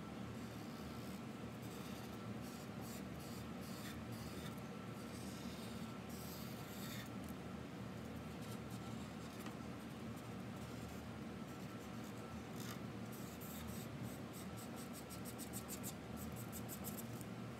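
Felt-tip marker scribbling back and forth across paper while colouring in a large area, with a fast run of short strokes near the end. A low, steady hum runs underneath.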